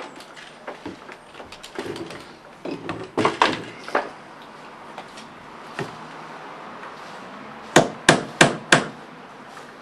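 Hammer striking wooden porch floorboards: scattered lighter knocks and taps, then four sharp, loud blows in quick succession near the end.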